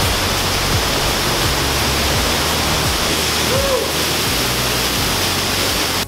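Waterfall: a steady, loud rush of water falling and splashing into a pool, with faint background music underneath. It cuts off suddenly at the end.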